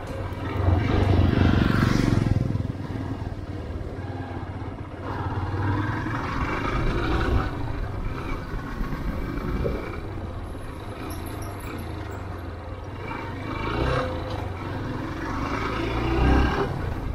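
Motorcycle engine running under way while riding, with wind noise rushing over the handlebar-mounted microphone; the sound swells for a moment about a second in and again near the end.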